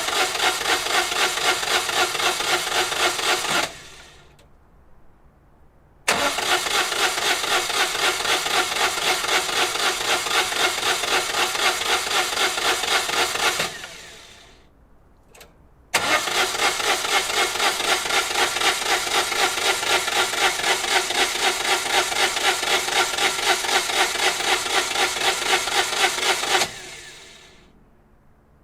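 Citroen 2CV's air-cooled flat-twin engine being cranked by its starter motor in three separate tries, each a steady rhythmic chugging that stops abruptly without the engine catching.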